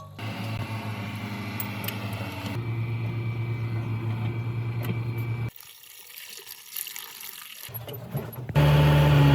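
Water hissing over a steady mechanical hum, then after a break a truck's diesel engine running loudly and steadily near the end.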